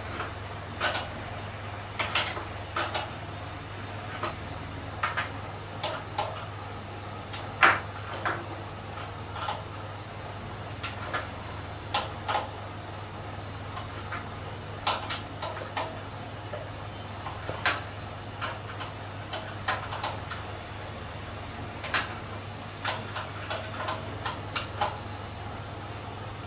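Irregular clicks and light metallic clinks and knocks as an industrial sewing machine clutch motor and its mounting fittings are handled and positioned on a wooden table top, over a steady low hum.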